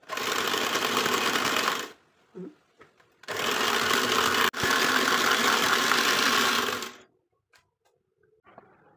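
Electric hand mixer running with its twin beaters whisking a creamy mixture in a glass bowl. It runs in two steady spells, about two seconds and then, after a short pause, about three and a half seconds with a brief break midway, before switching off.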